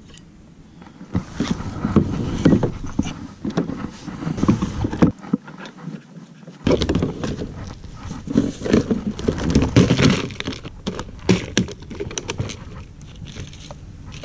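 Hands handling and fitting plastic kayak parts, a rudder blade and a round hatch cover: irregular clicks, knocks and rustling.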